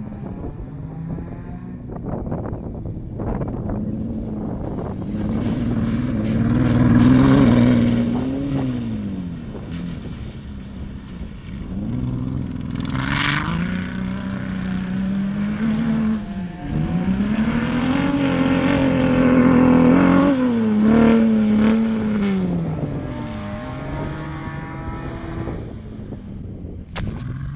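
Dune buggy engine revving up and falling back again and again as the buggy is driven hard. The pitch climbs and drops through several runs, and it is loudest about seven and twenty seconds in.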